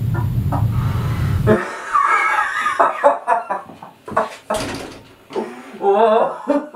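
A low hum with quick, clucking-like sounds over it cuts off abruptly about a second and a half in. After it come wavering, whining animal-like vocal cries and scattered short clicks, part of a sound-design soundtrack.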